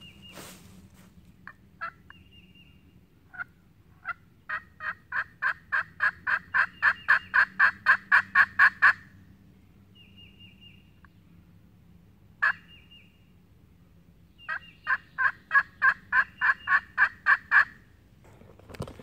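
A turkey call yelping like a hen turkey: a few single yelps, then a run of about eighteen two-note yelps at about four a second, growing louder, and after a pause a second, shorter run.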